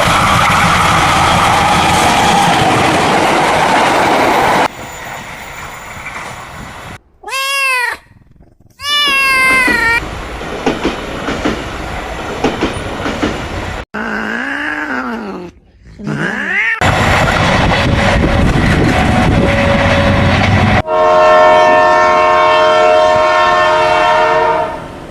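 Train noise cut together with short cat meows, ending with a locomotive horn held for about three and a half seconds as a steady chord.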